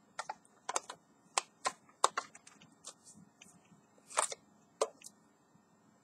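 Plastic clicks and clatter of a handheld 12 V car vacuum cleaner being taken apart by hand, its clear dust cup unlatched and pulled off the motor housing while the motor is off. A string of sharp, irregular clicks, loudest about two and four seconds in.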